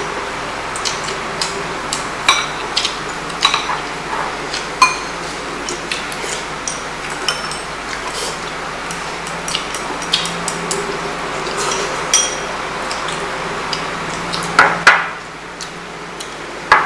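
Eating utensils clinking against rice bowls and dishes during a meal: irregular sharp clinks, a few of them ringing briefly.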